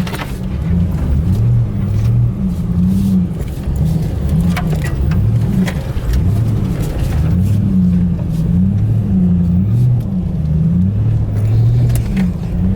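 Off-road vehicle engine under load, its revs rising and falling again and again as it works through deep snow, with occasional knocks and bumps.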